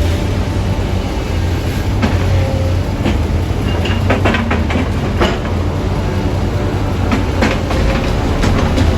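Steady low rumble with scattered clicks and rattles, like a vehicle on the move.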